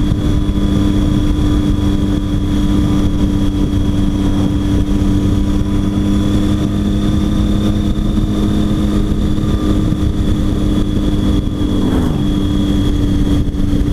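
Triumph Tiger 800 XC's inline three-cylinder engine running at a steady cruising speed, with wind noise over it. Near the end there is a brief falling tone.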